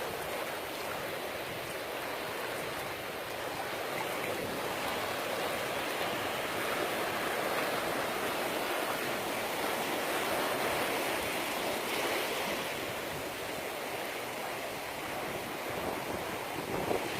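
Ocean surf breaking and washing up the beach as a continuous rush, swelling a little in the middle.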